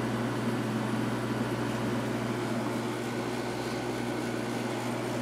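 A 5200 BTU White Westinghouse window air conditioner running on cooling: a steady low hum from its Matsushita compressor under the even rush of air from its fan. The GE replacement fan motor runs smoothly.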